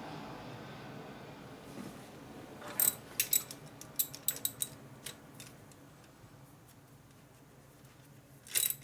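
Metal hand tools and parts clinking and clicking: a quick run of sharp clinks about three seconds in, and one louder clink near the end.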